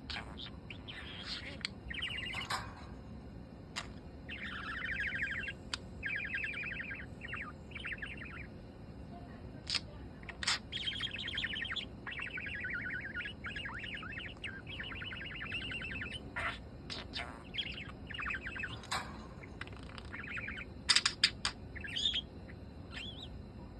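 A pet yellow parakeet chattering and warbling to itself: long runs of fast, buzzy warble broken by sharp clicks and short chirps, with a few louder clicks near the end.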